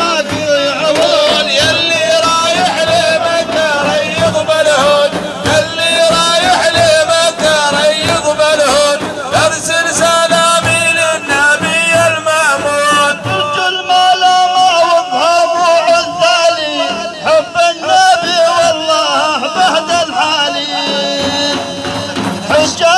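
Music: a wavering, ornamented melodic line over frequent drum strokes, in a Middle Eastern style.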